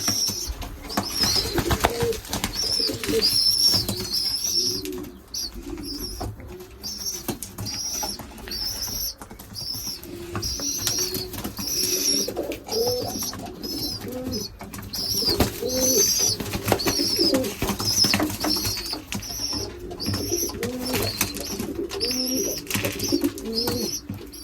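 Racing pigeons in a loft: low cooing mixed with a steady run of short, high-pitched begging cheeps from recently weaned young pigeons, with occasional wing flaps and sharp clicks.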